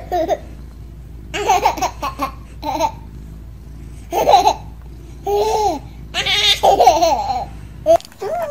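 A baby laughing in several short bursts of giggles, with pauses between them.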